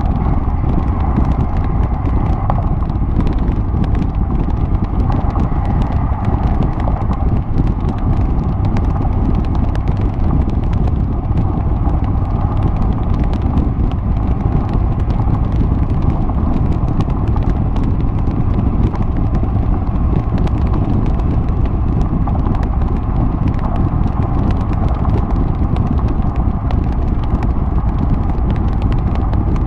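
2011 Mercedes-Benz G55 AMG's supercharged 5.4-litre V8 cruising at steady highway speed, its side exhaust heard close up from a microphone mounted outside the car. The exhaust drone stays even, with no revving.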